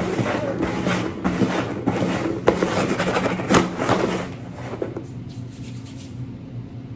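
Upturned plastic bowls being slid and shuffled over a wooden tabletop: a rubbing scrape with a few sharp knocks, stopping about four seconds in.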